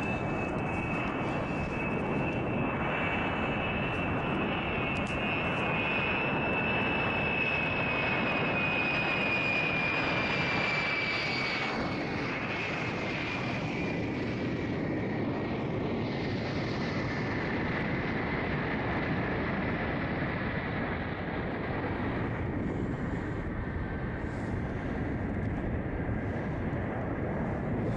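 Aircraft engines droning steadily under a rushing noise, with a high whine that slowly sinks in pitch and fades out after about twenty seconds.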